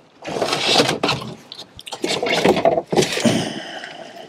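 Fishing rods in fabric socks being handled in a boat's under-floor locker: a run of scraping and rustling with knocks as the rods are pushed in and pulled out.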